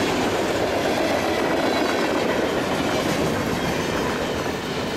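Freight cars rolling past: a steady rumble with wheels clattering over the rails, easing slightly near the end.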